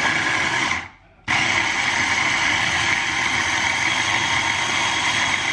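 Electric food chopper running. It stops for about half a second around the one-second mark, then starts again and runs steadily, chopping the pide filling.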